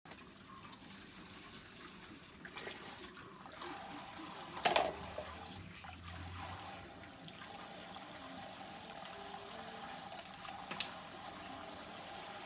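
Water running steadily at a salon backwash basin, with two brief sharp clicks, one about five seconds in and one near the end.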